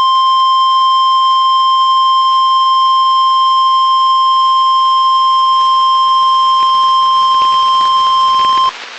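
NOAA Weather Radio 1050 Hz warning alarm tone: one loud, steady, high-pitched tone lasting about nine seconds that cuts off suddenly near the end. It is the signal that a warning message is about to be broadcast.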